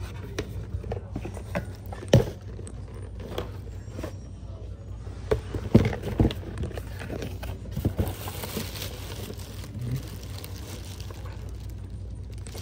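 Irregular knocks, clicks and rustles of objects being handled, with a sharp knock about two seconds in and a cluster of knocks around the middle, over a steady low hum.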